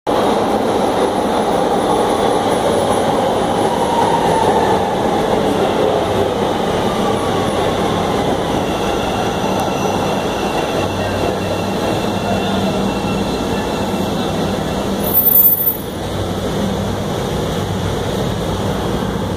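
CTA Red Line subway train pulling into an underground station: loud steady rolling and brake noise, with a falling whine a few seconds in as it slows. The noise drops suddenly about sixteen seconds in as the train stops, leaving a steady hum.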